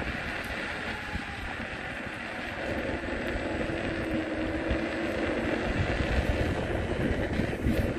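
Wind buffeting the microphone of a handheld camera on a selfie stick, a steady rush with an uneven low rumble.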